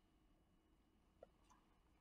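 Near silence: room tone, with one faint click about a second in.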